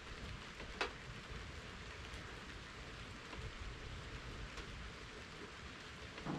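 Steady rain falling, with a sharp tap about a second in and another near the end.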